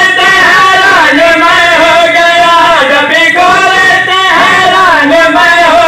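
A man's voice singing a devotional qasida in praise of Ali into a microphone, in long held notes that bend and waver up and down.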